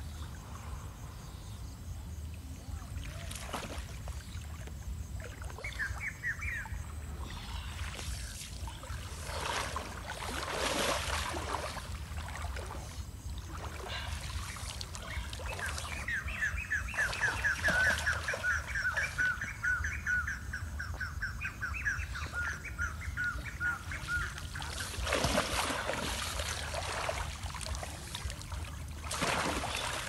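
Shallow river water splashing and sloshing in several short bursts as a hand-held dip net is swept and lifted through it. In the middle a bird sings a long, rapid trill of repeated notes for about eight seconds, after a brief chirp earlier on.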